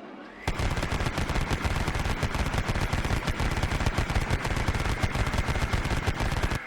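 Machine gun firing one long continuous burst of rapid shots, starting about half a second in and stopping abruptly near the end.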